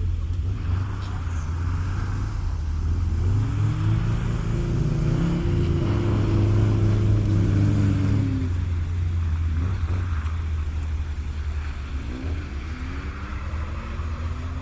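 Motor vehicle engine accelerating, its pitch rising from about three seconds in and dropping away near eight seconds, then climbing again near the end, over a steady low rumble.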